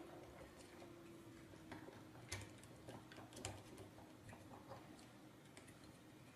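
Near silence with a few faint clicks and taps of plastic parts being handled, as the robot kit's battery box is seated onto its mounting pillars. The clearest clicks come about two and a half and three and a half seconds in.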